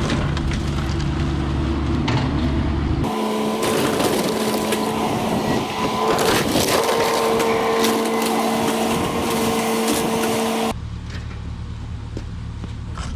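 Excavator engine running while it crushes and splinters a house's wooden framing. About three seconds in the sound changes abruptly to a steady whine over the crunching, and the low engine drone returns near the end.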